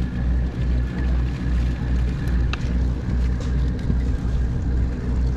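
Sport fishing boat's engine running steadily underway: a low drone that pulses evenly, with wind and water noise over it.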